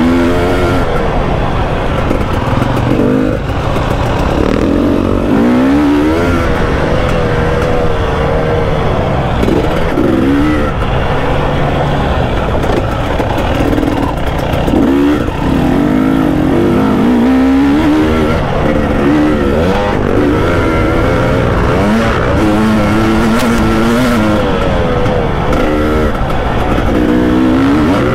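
KTM 300 two-stroke motorcycle engine, heard from on the bike, revving up and backing off again and again as the throttle is opened and shut.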